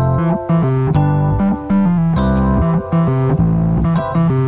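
Background music: a keyboard melody with a steady beat, notes changing about every half second.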